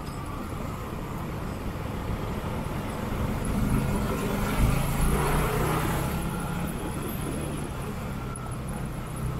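Road and traffic noise on a moving motorcycle: a steady rush of wind and engine hum, with a vehicle engine growing louder about midway and fading again.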